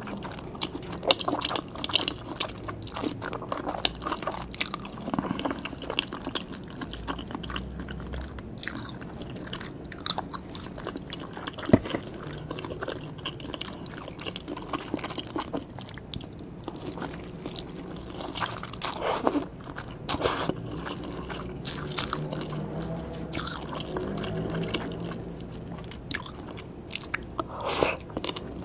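Close-miked eating sounds: biting and wet chewing of raw salmon, soft rice noodles and crunchy shredded green papaya salad, with short sharp crunches scattered throughout.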